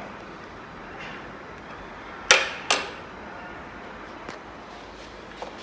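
Two sharp clicks about half a second apart a little over two seconds in, then a couple of faint ticks, from a screwdriver at work tightening the screws of a motorcycle battery's terminals.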